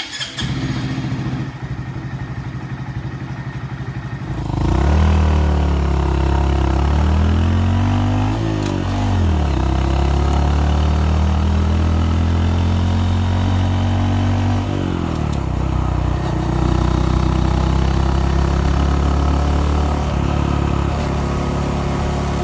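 Honda Monkey 125's single-cylinder four-stroke engine running, quieter at first and then louder from about four seconds in, its engine speed dipping and rising again at about eight seconds and dropping once more near fifteen seconds.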